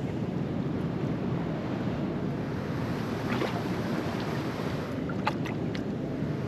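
Steady rushing wind noise buffeting the microphone, with a few faint short clicks about three seconds in and again after five seconds.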